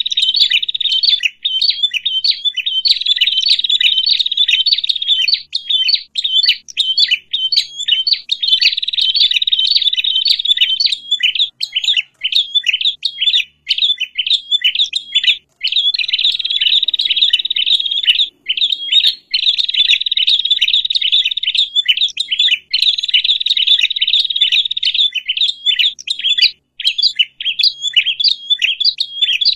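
Small songbirds chattering in a dense, agitated chorus of rapid chips and trills, the noisy calls that bird-catchers play as a lure to draw other small birds in. The chattering runs on almost without pause, with brief breaks every few seconds.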